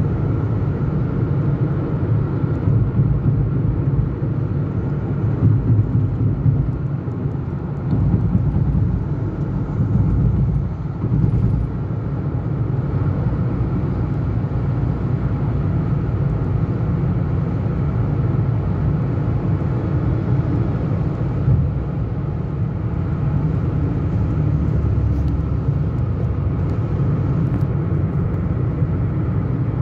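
Car driving steadily on the road: a continuous low rumble of tyres and engine, unevenly louder for a few seconds in the first half.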